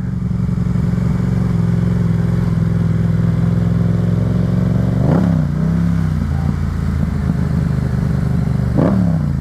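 Yamaha FZ-07's 689 cc parallel-twin engine running at a steady, unchanging pitch, with two brief sweeps in sound about five and nine seconds in.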